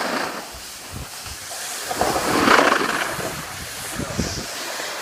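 Snowboard edges scraping and sliding over packed snow, mixed with wind rushing on the microphone; the scrape swells about halfway through.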